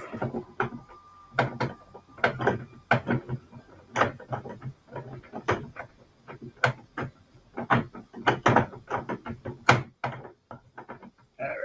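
Screws being hand-driven with a screwdriver through a caster's steel mounting plate into a high-density polyethylene cart frame: a run of irregular squeaks and clicks, one with each turn of the screw.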